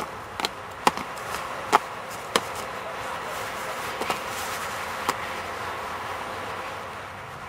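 Series of sharp slaps and knocks at irregular intervals, about six, most of them in the first two and a half seconds and the last a little after five seconds, over a steady outdoor hiss.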